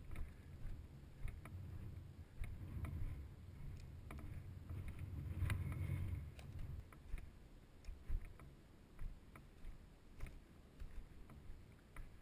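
Wind buffeting a body-worn camera's microphone, a low rumble that swells about halfway through and then eases. Irregular light crunches and ticks of footsteps in dry grass and brush run over it, more of them in the second half.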